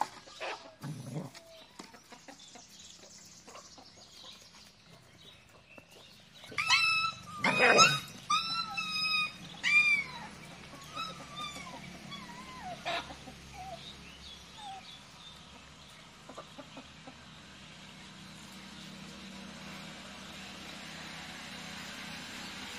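Puppies yelping and whining: a run of short, high, sliding cries a little over six seconds in, then a few fainter whimpers that die away.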